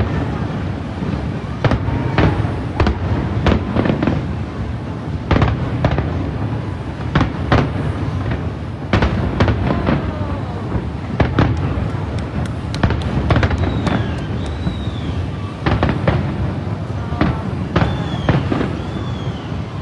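Aerial fireworks bursting in an irregular series of sharp bangs over a steady rumble, with a few short high whistles in the second half.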